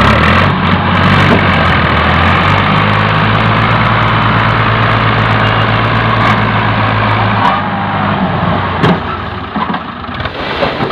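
Diesel engines of two farm tractors, a Fiat 480 and an Al Ghazi, running together, coupled to move a heavily loaded sugarcane trolley. The heavy engine note holds steady, then eases about seven and a half seconds in.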